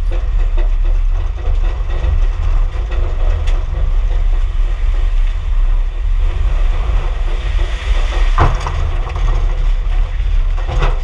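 Car driving noise heard from inside the cabin: a steady, loud low rumble of road and wind noise with scattered small ticks, and one sharper crack about eight seconds in.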